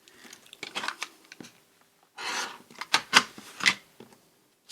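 Rotary cutter drawn along a ruler through paper, with paper rustling and a few sharp clicks as the ruler and sheet are handled. The longest scrape comes about two seconds in.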